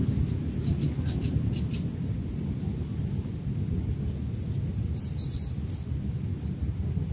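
Small birds chirping in short runs of quick, high chirps, about a second in and again around five seconds in, over a steady low rumble that is the loudest sound.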